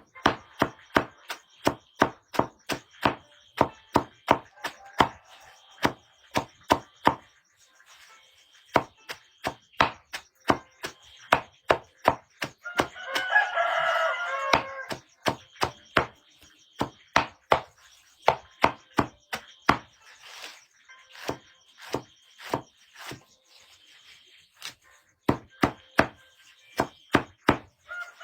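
Firewood being chopped: a steady run of sharp blade strikes, about two to three a second, pausing briefly now and then. A rooster crows once about halfway through and again at the very end.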